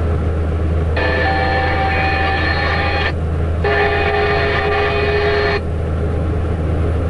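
Low steady drone of the IVECO truck's diesel engine heard inside the cab, with two long horn blasts of about two seconds each, one about a second in and one just after three and a half seconds, the second on a slightly different chord.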